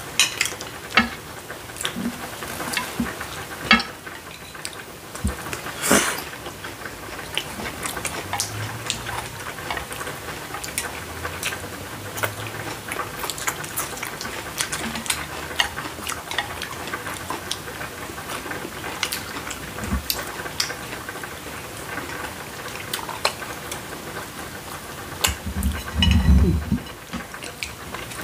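Close-up eating sounds: crispy boneless fried chicken chewed and noodles eaten, with many short sharp clicks of chopsticks against ceramic plates. There is a louder, deeper stretch near the end.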